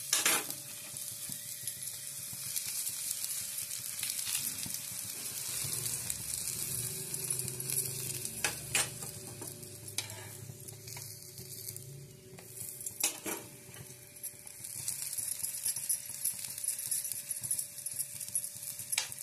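Onion paratha frying in ghee on a hot tawa, a steady sizzle, with three sharp clicks of a steel spoon against the pan.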